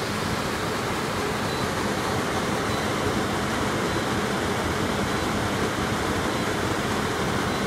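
Furnace blower motor, a permanent-split-capacitor motor with its run capacitor in circuit, running steadily under load on 120 volts: an even, unbroken rush of moving air and motor hum.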